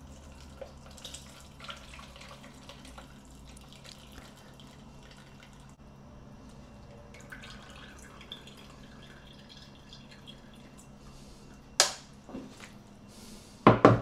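Tomato stock from roasted tomatoes dripping and trickling as it is drained into a container. Near the end come two sharp knocks, about two seconds apart.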